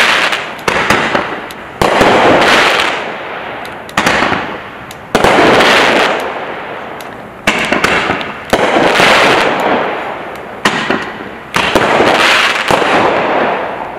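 Turbo 5-shot XL Roman candles, 29-inch, firing shot after shot: about nine sharp, loud bangs, roughly one to two seconds apart, each followed by a long fading tail.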